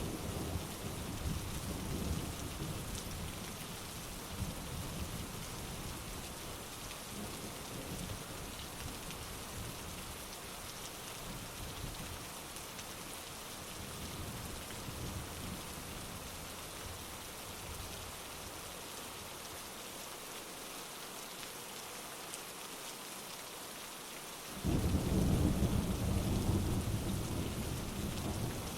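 Heavy rain falling steadily, with low thunder rumbling at first and dying away. Near the end a new peal of thunder breaks in suddenly and rolls on.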